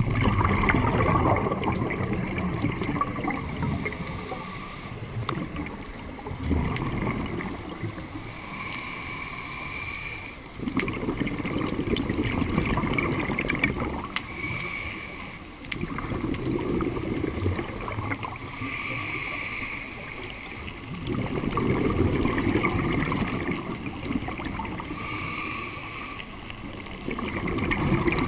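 Scuba diver breathing through a demand regulator underwater: a hissing inhale with a faint whistle, then a few seconds of rumbling, bubbling exhaust as the breath is let out, repeating about five times.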